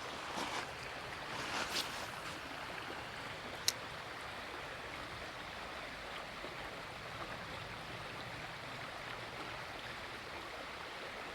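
Creek water running steadily over rocks, with a couple of brief louder swishes near the start and a single sharp click a little under four seconds in.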